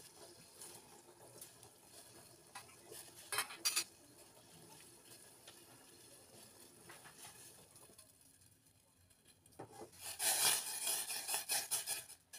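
Metal spoon clinking against a stainless steel saucepan as sugar is added to the tea: two sharp clinks about three and a half seconds in, then a quick run of clinks and clatter from about ten seconds to near the end.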